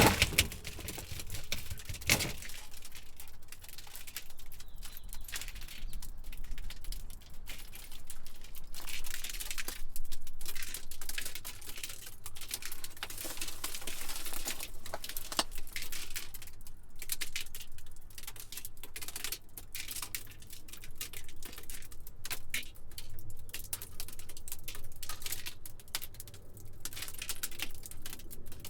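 Glass debris falling and settling after a shattering: a long, irregular run of small clinks and ticks from scattered shards, with one louder crack about two seconds in.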